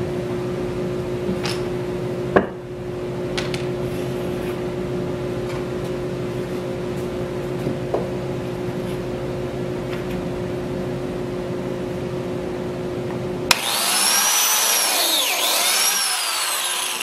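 Biscuit joiner motor running steadily, with a few sharp knocks, while it cuts biscuit slots in the wooden gate rails. Near the end the sound turns suddenly louder and harsher.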